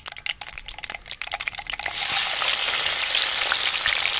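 Mustard seeds crackling and popping in hot coconut oil, then about two seconds in a sudden, louder, steady sizzle as shallots go into the oil.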